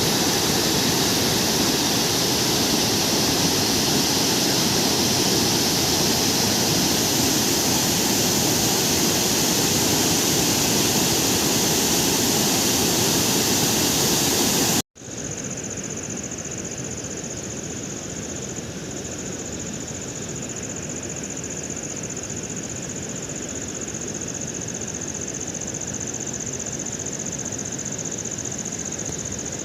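Steady heavy rain, a dense even hiss, that cuts off abruptly about halfway through. A quieter steady background follows, with a continuous high-pitched tone running over it.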